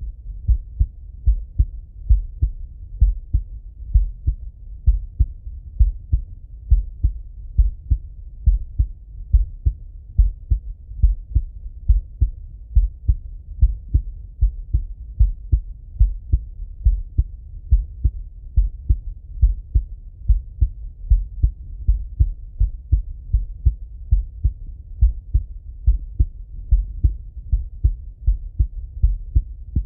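A man's heartbeat heard through a stethoscope: slow, steady, evenly spaced low thumps.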